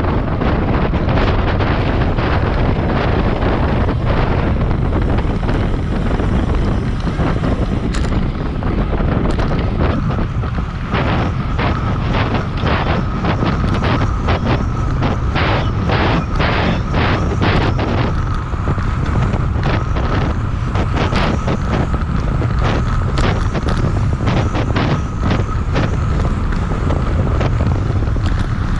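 Heavy wind buffeting on the camera microphone of a road bike ridden at about 30 mph. From about ten seconds in it carries a run of sharp clicks and a faint steady high whine.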